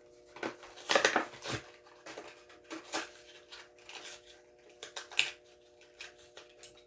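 Plastic blister packaging and cardboard being handled: irregular crinkles and clicks, with a few louder crackles spread through.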